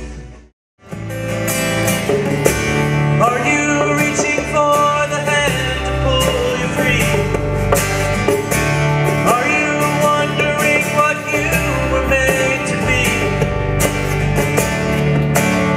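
Live band music: strummed acoustic guitar with electric bass and djembe hand drum. It starts after a brief drop to silence just under a second in.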